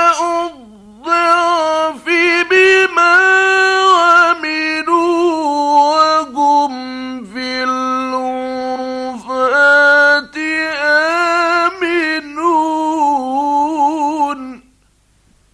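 A male Quran reciter's voice chanting in the mujawwad style, with long held notes bent through ornamented melodic turns and a few short breaths between phrases. It stops suddenly about a second before the end.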